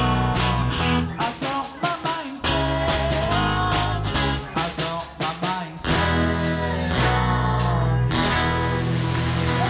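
A small band playing live: a strummed acoustic guitar with an electric guitar and singing voices. The chords come in short, clipped strokes at first, then ring out as longer held chords in the second half.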